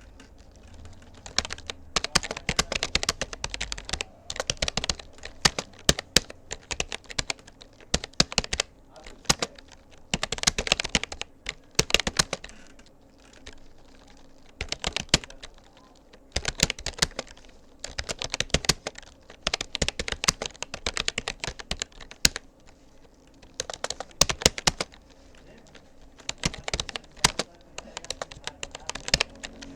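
Keystrokes on a Rapoo computer keyboard: steady touch-typing in runs of quick clicks, broken by brief pauses every few seconds.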